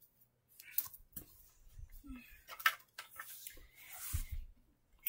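Handling noise: scattered light clicks, taps and rustles as someone moves close to the microphone, with a brief low sound about two seconds in.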